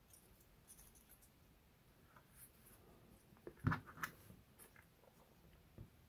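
Thin laser-cut wooden model-kit pieces handled and fitted together by hand: faint scrapes and light taps, with two sharper clicks close together a little under four seconds in.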